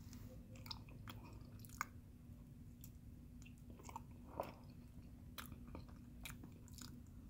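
A person chewing and biting a mouthful of Cinnabon cinnamon roll: soft, irregular mouth clicks, two of them louder, over a faint steady hum.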